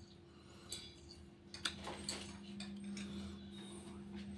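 Quiet eating sounds: a handful of sharp, light clicks and clinks scattered over a few seconds, over a steady low hum.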